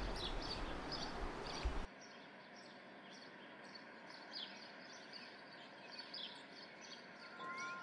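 Outdoor ambience with small birds chirping in short, repeated high calls. A steady hiss under the calls drops off sharply about two seconds in, and the chirps carry on faintly. A steady musical tone comes in near the end.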